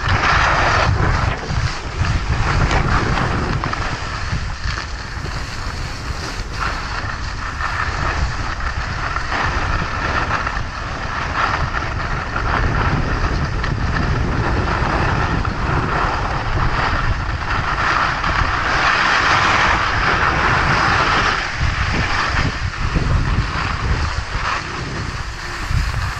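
Wind buffeting a ski-worn camera's microphone, with skis hissing and scraping over groomed snow on a continuous downhill run; the hiss swells for a few seconds past the middle.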